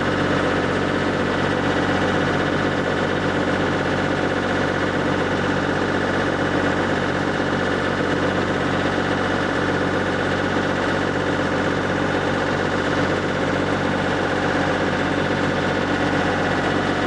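Motorboat engine running at a steady speed, heard from on board the moving boat as an even, unchanging drone.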